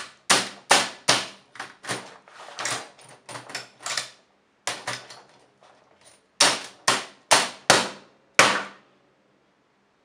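Hammer blows on an Olivetti Lettera 25 portable typewriter: a fast run of sharp strikes and clatter, a stretch of lighter rattling, then five heavy blows in quick succession, stopping about nine seconds in.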